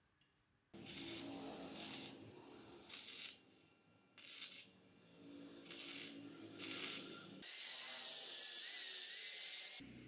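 Electric arc welding steel: about six short crackling, hissing weld bursts, then a louder steady hiss lasting over two seconds near the end.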